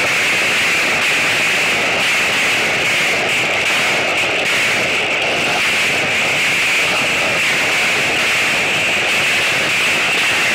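Heavy hailstorm: large hailstones and rain pelting down in a loud, steady, dense clatter of countless impacts.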